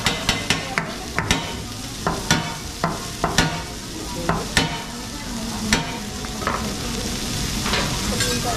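Food sizzling on a teppanyaki steel griddle, with a run of sharp, irregular metal clicks and taps from the chef's shaker and spatulas over the first six seconds or so, fewer after.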